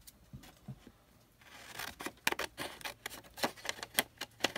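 Scissors cutting through a card tag: a quick run of crisp snips and paper rustle that starts about a second and a half in.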